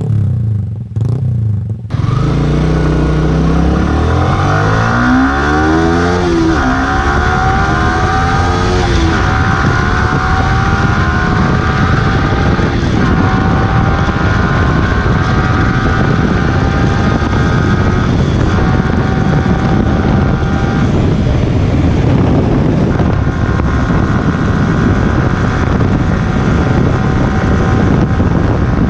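Single-cylinder motorcycle engine revving up and down a few times, then pulling hard with its pitch climbing steadily and dipping briefly at each of several gear changes.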